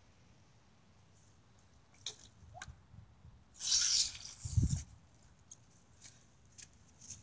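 Pump-style water blaster drawing water up from a puddle through its nozzle: a few small squelching clicks, then a short sucking hiss of water and air about halfway through, followed by a low thud.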